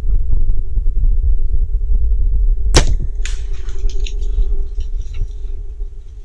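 Compound bow shot: one sharp snap of the string and limbs releasing about three seconds in, followed by a couple of seconds of scattered crackling and rustling, over a steady low rumble.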